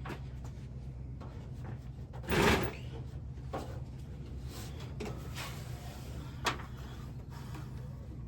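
Workshop handling noises over a steady low hum: a loud scraping clatter of about half a second, about two seconds in, then a few faint knocks and a single sharp click later on.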